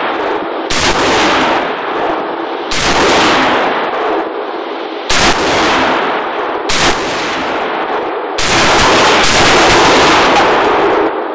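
Semi-automatic Browning Automatic Rifle in .30-06 firing a string of single shots, one every one to two seconds, each shot trailed by a long echoing ring.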